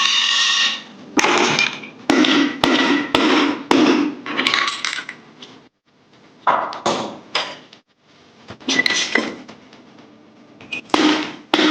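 Metal parts clinking and clattering against metal: a series of short ringing knocks in quick runs, with a pause about halfway through.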